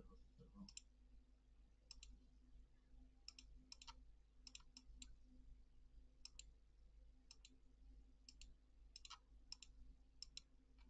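Faint computer mouse clicks, a dozen or so at irregular intervals, many in quick pairs, over a low steady electrical hum.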